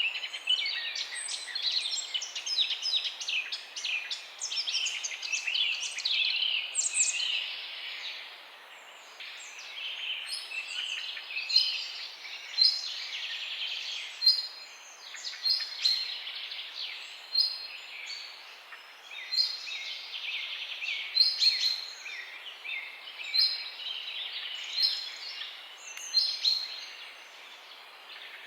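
Several small birds chirping and twittering over a soft outdoor hiss, a dense chorus of overlapping calls at first, thinning after about eight seconds to scattered, repeated chirps.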